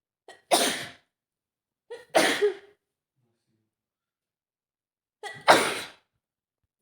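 A woman sneezing three times, each sneeze led by a short catch of breath, the second about two seconds after the first and the third about three seconds after that; she is sick with a cold.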